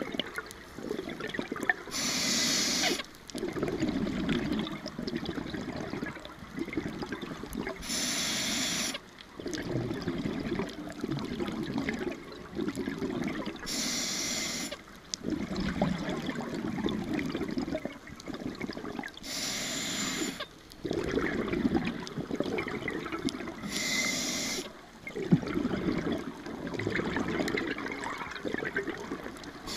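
Scuba diver breathing through a regulator underwater. Each breath starts with a short hiss as the diver inhales, followed by a few seconds of gurgling exhaust bubbles. Five breaths come about every five to six seconds.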